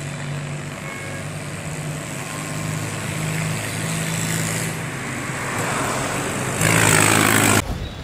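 Road traffic: a motor vehicle engine running steadily with road noise. A louder surge of vehicle noise comes about a second before the end and cuts off suddenly.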